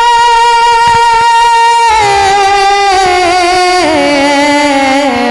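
A solo devotional singer holds a long, steady note on the last syllable of the line. About two seconds in, the voice moves into a slow, descending run with wavering ornaments.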